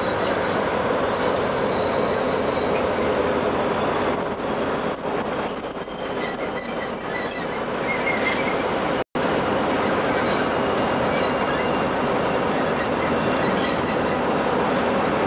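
Preserved diesel locomotives running, one standing close by while the Class 20 runs round on the curve alongside. A thin high squeal, typical of wheel flanges on a curve, comes in about four seconds in and holds for some three seconds. The sound cuts out for an instant about nine seconds in.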